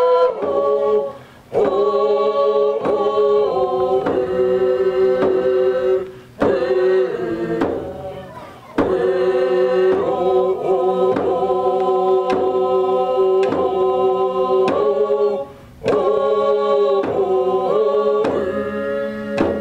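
A group of voices singing a song in unison over hand frame drums struck in a steady beat, a little under two beats a second, with brief pauses between sung phrases.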